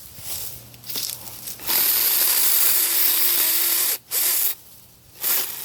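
Battery-powered 24-volt mini chainsaw with a 4-inch bar, its chain cutting branches in short bursts. There is one longer run of about two seconds in the middle.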